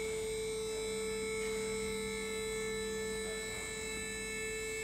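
Hydraulic power unit of a Molnar Laser 2.2 CP two-post car stacker running as it moves the loaded platform: a steady electric-motor and pump whine, with a lower hum joining about a second in.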